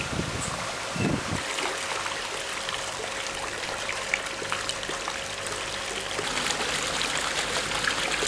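Water running and trickling, with many small splashes, and a couple of low wind thumps on the microphone at the start and about a second in.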